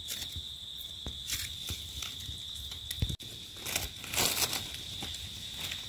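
Dry leaf litter rustling and crackling, with a few sharp snaps, as hands and a knife cut wild bolete mushrooms at the stem base; the loudest rustle comes about four seconds in. A steady high insect drone runs underneath.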